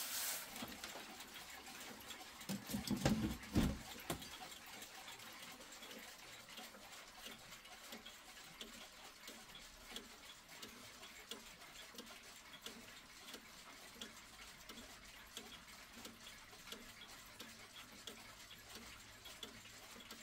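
A weight-driven pendulum clock movement, a 1973 SBS Feinmechanik Black Forest-style movement, ticking steadily and softly. About three seconds in there is a short burst of louder low knocking.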